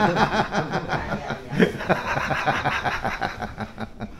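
Laughter: a run of quick chuckles that trails off toward the end.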